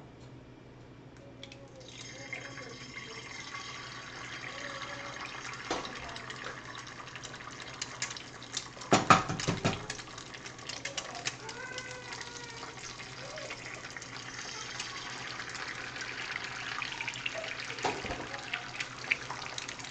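Eggs sizzling as they fry in a small cast iron skillet. The sizzle starts about two seconds in, when the first egg goes into the hot pan, and crackles with small pops from then on. A sharp knock comes about nine seconds in.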